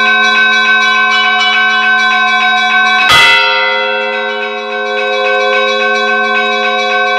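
Church bells ringing: a rapid peal of smaller bells over sustained ringing tones, with one heavy strike of a larger bell about three seconds in whose ring slowly fades.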